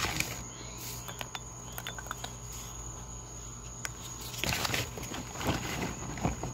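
Charcoal briquettes being set around a crucible in a cinderblock furnace: scattered light clicks and taps, then a denser run of knocks and scrapes about four and a half seconds in.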